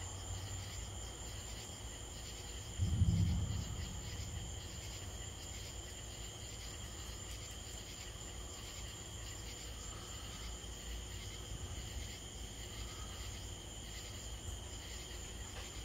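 Steady chorus of night insects chirring, with a short low thump about three seconds in.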